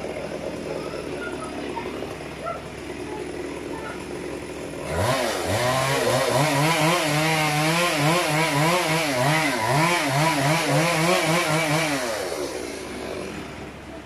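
Chainsaw running low at first, then revved up sharply about five seconds in and held at high speed with a wavering pitch as it cuts into the tree trunk, dropping back about twelve seconds in.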